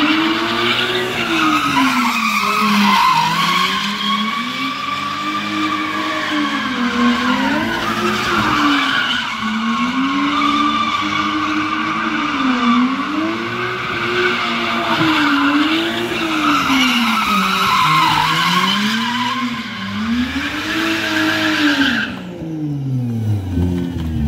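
Two drift cars, a Toyota Soarer and a Mazda Miata, sliding in tandem. Their engines rev up and down every second or two as the throttle is worked, over continuous tyre squeal. The squeal stops about two seconds before the end and the revs drop away.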